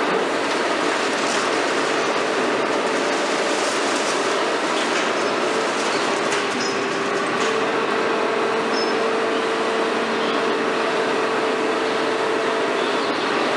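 High-reach demolition excavator (KMC 400 on a Hitachi 350 base) running steadily with a constant hydraulic whine while its boom attachment works at the concrete upper floors, with scattered cracks and clatter of breaking concrete and debris.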